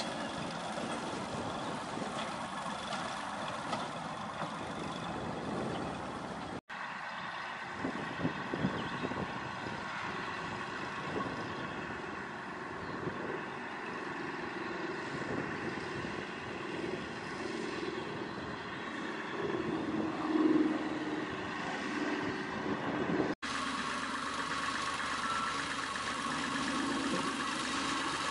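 Two-foot narrow-gauge diesel locomotive's engine running steadily as it hauls a short train of small wagons. The sound changes abruptly twice, about seven and twenty-three seconds in.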